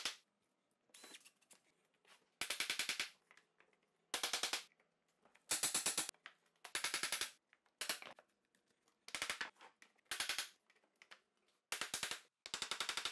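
Laminate planks being worked and tapped into place on the floor: about ten short bursts of rapid sharp taps, each well under a second long, with brief pauses between them.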